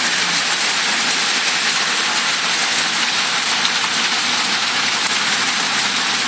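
Heavy rain pouring onto wet tarmac, puddles and a parked car: a dense, steady hiss.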